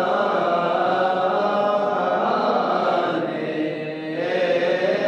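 Slow chanting, a voice or voices holding long notes that glide gently in pitch. It eases off briefly about three to four seconds in, then resumes.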